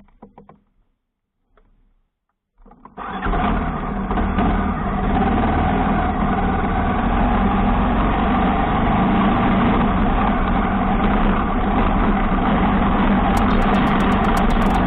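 A motor vehicle's engine, most likely a motorcycle's, running steadily at speed. It cuts in abruptly about three seconds in, after a few faint clicks.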